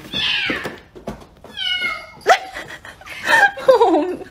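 A domestic cat meowing loudly and repeatedly, about four insistent calls that mostly fall in pitch, the last one long. These are the cries of a cat with separation anxiety.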